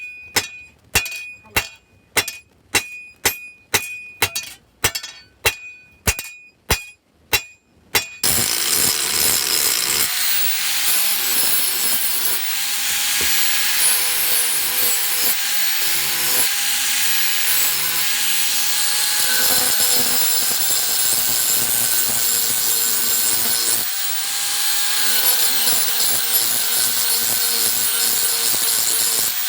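A hammer strikes steel about twice a second, each blow ringing with a high metallic note. About eight seconds in the hammering stops and a power tool begins grinding steel with a loud, continuous rasping hiss that runs on steadily.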